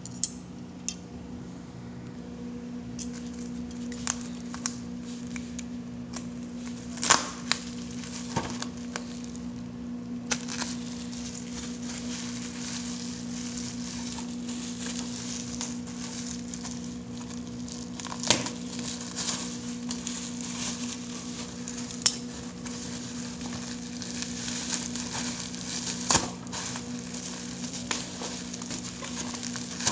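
Plastic bubble wrap being handled and pulled off a parcel, crinkling, with scattered sharp crackles, over a steady low hum.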